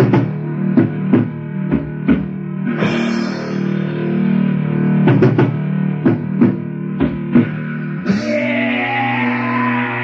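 Black/death/doom metal demo-tape recording: guitar chords held over a run of drum hits, with two brighter swells, about three seconds in and again near the end.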